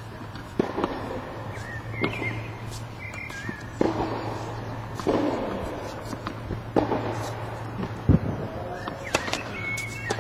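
Tennis ball being struck and bouncing on a hard court: sharp pops every second or two, with one heavier thud about eight seconds in.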